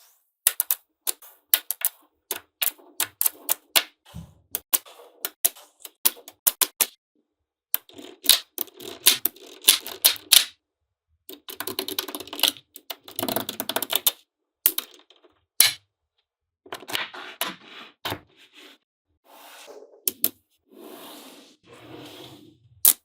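Small magnetic balls snapping together with sharp clicks, one after another at an uneven pace, with denser stretches of clattering as groups of balls knock and roll against each other.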